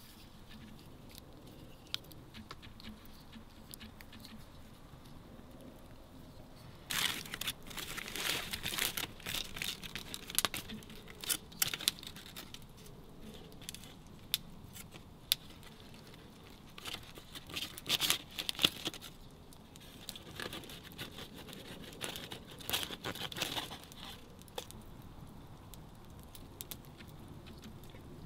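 Aluminium foil crinkling and rustling in several bursts as a fish is handled and cut with a knife on it.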